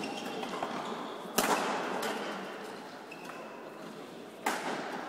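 Badminton rackets striking a shuttlecock in a rally: three sharp hits, the loudest about a second and a half in, each echoing in a large sports hall.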